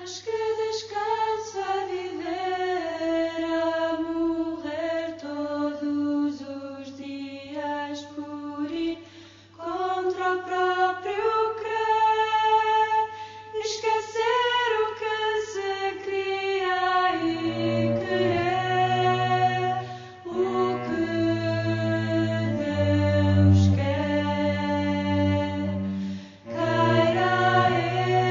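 Choral singing in slow, sustained phrases, with lower notes joining about two-thirds of the way in.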